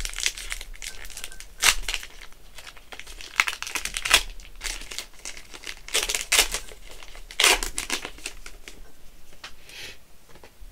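Plastic wrapper of a 2022 Topps Gypsy Queen baseball card pack crinkling as it is handled, in irregular bursts of crackling, with a few louder crackles.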